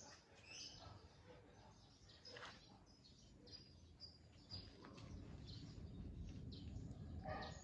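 Faint, scattered bird chirps over low background noise.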